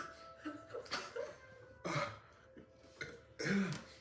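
A person coughing and gagging in short bursts after swallowing a shot of Jägermeister with aioli in it, ending in a longer voiced cough-groan.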